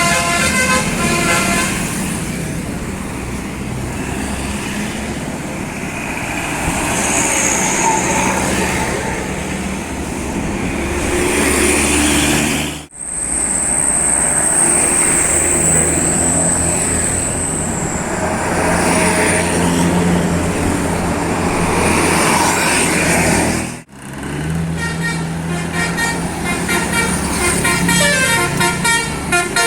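Tour buses running and passing, with multi-tone 'telolet' musical horns playing quick stepping melodies near the start and again near the end. The sound breaks off sharply twice along the way.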